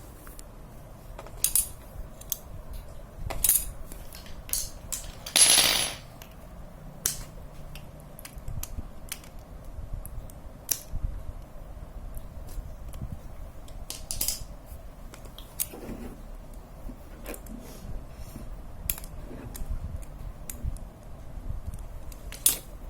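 Light metallic clicks and clinks from bicycle hub parts and hand tools being handled, irregular and spaced out, with one longer rasping noise about five seconds in.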